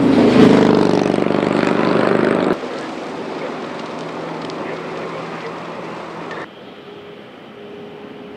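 A motorcycle engine running loudly as it passes close by on a freeway, cut off abruptly about two and a half seconds in. It gives way to a steady rushing noise, which drops suddenly to a quieter hum with a faint steady tone near the end.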